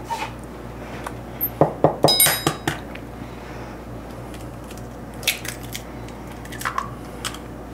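An egg knocked against a stainless steel mixing bowl and cracked open: a cluster of sharp clinks with a short metallic ring about two seconds in, then a few softer clicks later.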